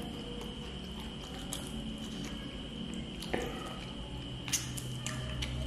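Close-miked chewing and wet mouth sounds of eating roast chicken by hand, with a few sharp lip smacks and clicks, over a steady background hum with a faint high whine.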